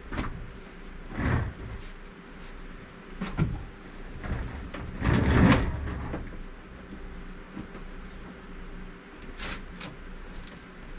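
Handling noises in a workshop: a handful of irregular knocks and scrapes, the loudest about five seconds in, over a faint steady hum.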